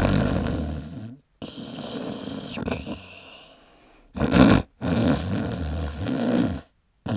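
Snoring sound effect: several long, rasping snores in a row, each cutting off abruptly, with a short, louder snore about four seconds in.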